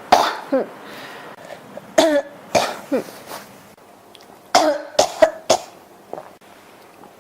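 A person coughing in short fits, about nine coughs in three clusters: two near the start, three around two to three seconds in, and a quick run of four from about four and a half seconds in.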